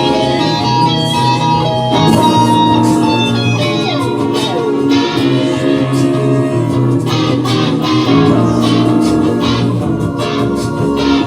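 Instrumental music led by guitar, with plucked and strummed notes over a bass line, and a note sliding down in pitch about four seconds in.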